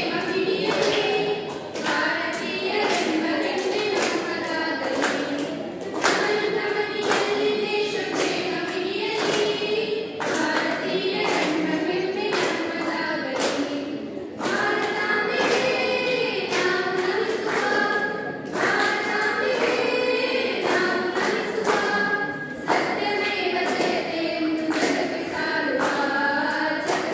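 A small group of girls singing a song together into stage microphones, with held notes and a moving melody.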